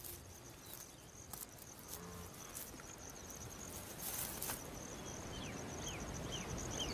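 Savanna ambience: insects trilling steadily on one high note, with a few short rasping strokes as a zebra crops grass in the first half. From about five seconds in, a bird calls a run of short falling chirps, about two a second.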